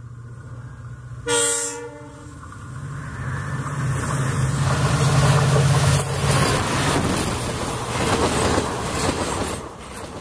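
Indian Railways WDP4-series diesel locomotive, its EMD two-stroke engine droning, sounds one short horn blast about a second in, then passes at speed hauling a passenger train. The wheel and rail noise builds to a peak and fades near the end.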